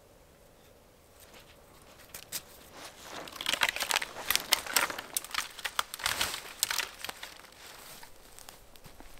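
Tarp fabric rustling and crinkling as it is lifted and draped over a cord ridgeline, starting about two seconds in, with many sharp crackles in the middle, then easing off near the end.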